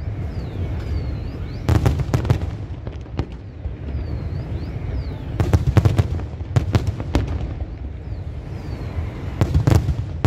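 Aerial firework shells bursting overhead in quick succession: clusters of sharp bangs about two seconds in, again around six to seven seconds, and near the end, over a continuous low rumble of further detonations.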